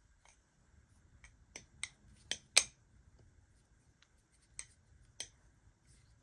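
Marcolo Comet balisong being flipped: a string of sharp, irregular metallic clicks and clacks as the handles swing and knock against the pins and close.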